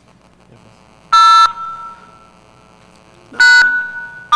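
Telephone touch-tone (DTMF) keypad tones, loud and clipped, with a ringing tail after each: two short tones about two seconds apart and a third starting at the very end. The keypresses are commands dialled over the phone line for the VoIP botnet bot to decode.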